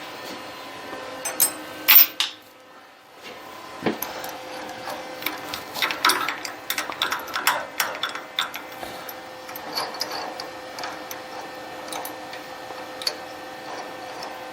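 Metal clinks and rattles of a drill chuck and drill bits being handled while a drill is swapped out, over a steady hum.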